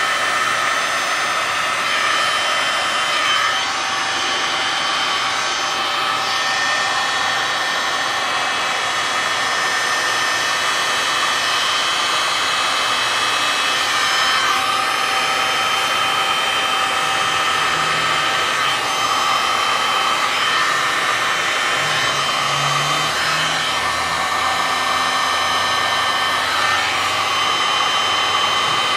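Handheld electric heat gun blowing steadily: a fan whine over rushing air, its pitch dipping briefly now and then.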